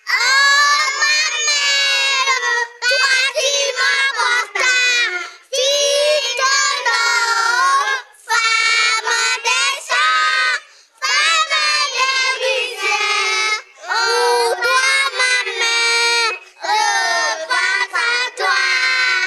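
A group of small children singing a song together into handheld microphones, in short phrases with brief breaks between them.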